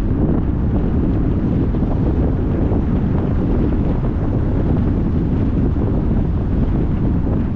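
Steady wind noise rumbling on the microphone, a loud, even hiss with most of its weight in the low end and no distinct events.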